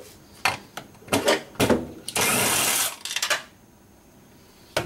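Cordless impact driver with a 3/8 socket loosening a bolt: a few short trigger bursts, then one steady run of just under a second about two seconds in, after which it stops. A single click near the end.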